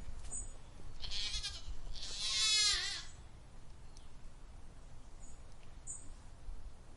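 A goat bleating twice: a shorter call, then a louder, longer bleat about two seconds in that quavers and drops in pitch at the end.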